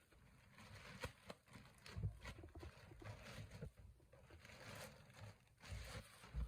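Faint rustling of packaging, broken by a couple of sharp clicks and a few soft knocks, as a coffee grinder is pulled out of its box.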